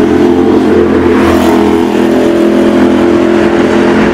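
Ducati Monster 796's air-cooled V-twin running through a full titanium performance exhaust, ridden at a steady engine speed. The exhaust note holds an even pitch with only a slight dip about two seconds in.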